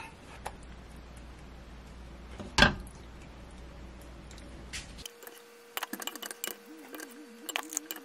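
One sharp knock about two and a half seconds in. From about halfway there is a run of light clinks and clicks as a ladle scoops soup from a pot into plastic food containers, over a steady hum.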